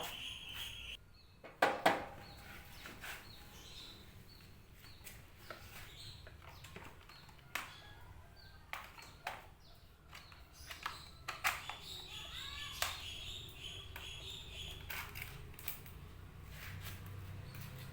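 Scattered knocks and clicks as parts and tools are handled, the loudest two close together about two seconds in, with faint bird chirps in the background.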